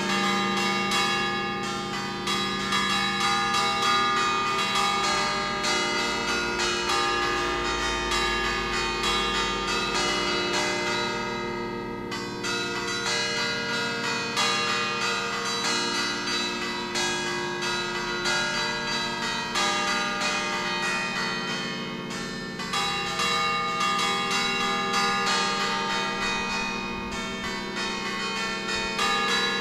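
Peal of church bells tuned in B-flat, cast by Pruneri in 1909 and Ottolina in 1948, struck in quick, overlapping tuneful patterns. The strikes pile up into a continuous ringing, easing a little twice along the way.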